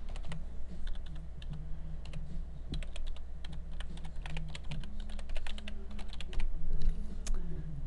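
Typing on a computer keyboard: a run of quick, irregular keystrokes over a steady low hum.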